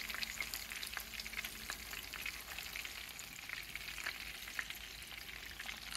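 Skewered beef seekh kebabs shallow-frying in hot oil in a frying pan: a steady sizzle with many small crackling pops.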